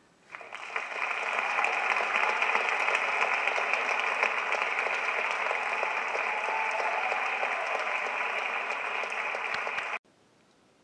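Audience applauding, building within about a second and holding steady, then cutting off abruptly near the end.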